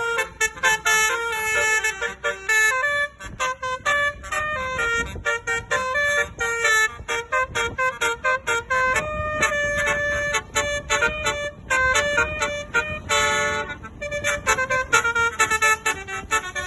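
Basuri multi-tone bus horn (Indonesian 'telolet' horn) playing a fast melody of short stepped notes, with brief pauses between phrases.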